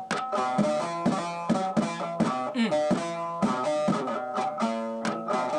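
Music played on a plucked string instrument: a quick, steady run of picked notes.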